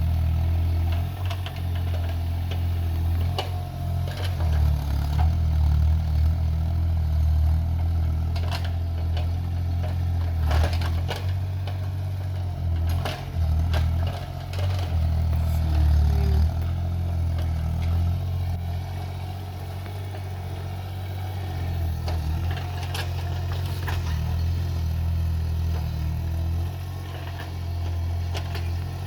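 Excavator's diesel engine running under varying load as it digs, with scattered clanks and knocks from the working machine.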